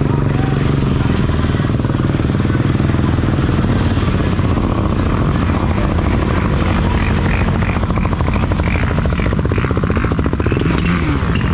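Quad bike (ATV) engine running steadily and loudly.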